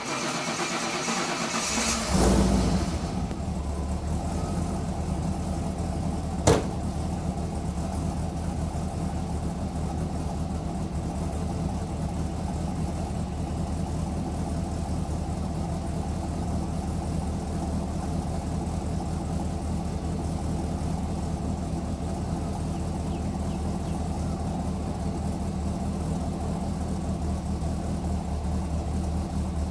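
LSX 376 V8 breathing through long-tube headers, a 3-inch Y-pipe and a Magnaflow muffler, turning over on the starter and catching about two seconds in with a brief flare. It then settles into a steady idle, with a single sharp click about six seconds in.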